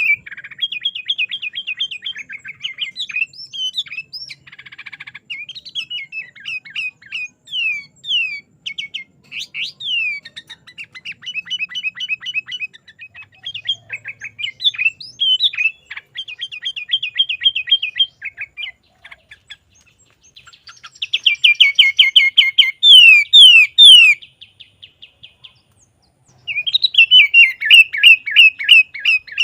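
Sooty-headed bulbul (kutilang) singing vigorously in long, varied phrases of rapid repeated and sweeping notes. The loudest runs of fast falling notes come about two-thirds of the way in and again near the end.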